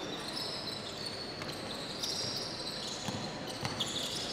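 Basketball game in play: sneakers squeaking on the court floor and a ball being dribbled, with a couple of bounces about three seconds in, over a steady arena crowd murmur.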